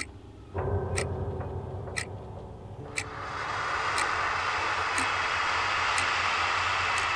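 Soundtrack of a clock-like tick, once a second. A low hum comes in about half a second in, and a wide hissing noise swells up around three seconds in and then holds steady under the ticks.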